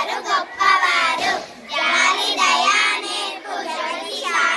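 A group of young schoolgirls chanting a Telugu verse (padyam) in unison, in a sung, melodic recitation style, with a short pause for breath about a second in.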